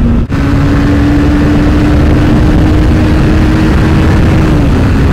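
Honda CBR300R single-cylinder engine running at a steady cruising pitch under heavy wind rush on the camera microphone. There is a brief dropout just after the start, after which the engine note is a little higher; it drops slightly near the end.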